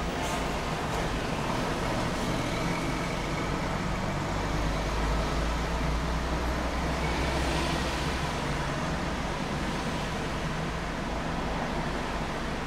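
Steady low engine and road-traffic rumble heard from inside a car's cabin while it idles and creeps forward in slow traffic.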